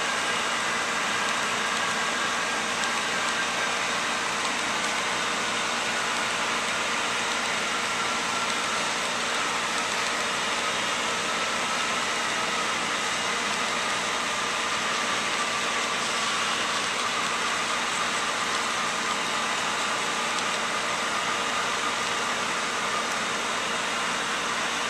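Model trains running on a layout: a steady hiss with faint whining tones that drift slowly up and down in pitch.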